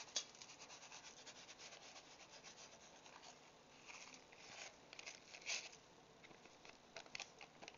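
Dry onion soup mix being shaken from its paper packet onto a roast in a pan. The flakes make a faint, rapid pattering, and a few soft rustles of the packet come near the middle and near the end.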